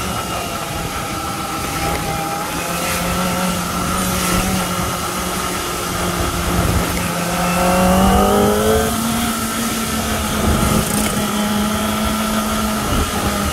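Kawasaki Ninja ZX-25R's 250 cc inline-four engine running steadily at low road speed, heard from the rider's seat; its pitch rises briefly a little past halfway as the throttle is opened.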